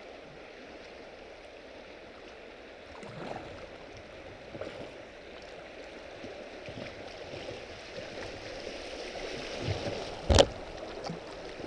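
River water rushing and splashing around a kayak's hull as it drifts through rippling shoal water, with a few small splashes. About ten seconds in comes one sharp knock, the loudest sound.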